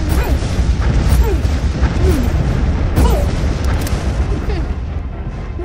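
Animated cartoon sound effects: a loud, deep rumble with short falling whistle-like cries over it, about one a second.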